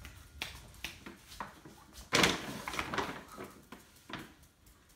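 Plastic dog food bag crinkling and rustling in quick, irregular crackles as a piglet stuck inside it moves about, with a louder burst of crackling about two seconds in.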